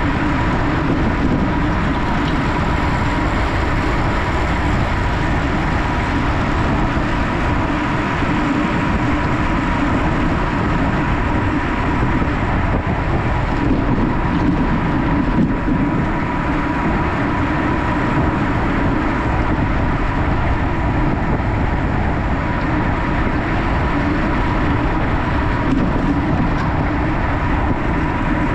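Steady rush of wind over the camera's microphone, with tyre noise from a road bike ridden at race speed.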